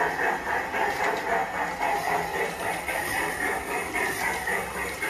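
PIKO G-scale model train running on its track: a steady mechanical running sound whose loudness pulses a few times a second.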